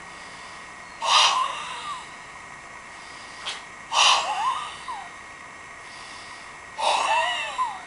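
Forceful breath bursts from a White Crane kung fu practitioner working through the Sanzhan form. Three strong ones come about three seconds apart, each under a second and with a squeezed, sliding pitch, and a short faint one falls between the first two.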